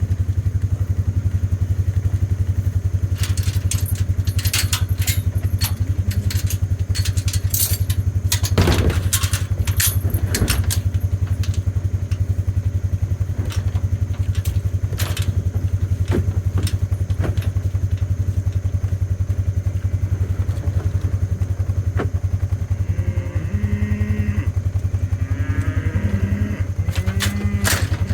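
An engine running steadily at idle, a low even hum, with scattered clattering knocks over it, mostly in the first half and again near the end.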